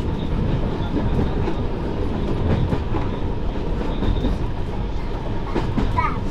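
Derby Lightweight diesel railcar running along the line, heard from inside its cab: a steady rumble of engine and wheels with clicks from the rail joints, and a short high squeak near the end.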